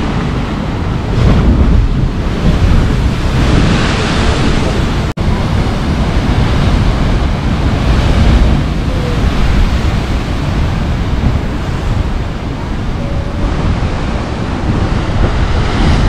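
Pacific surf crashing and surging into a rocky basalt chasm, the noise swelling as each wave breaks and throws up spray, with wind buffeting the microphone. The sound drops out for an instant about five seconds in.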